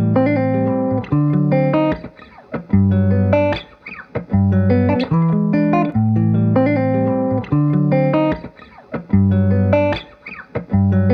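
Background music: a plucked guitar playing short melodic phrases over bass notes.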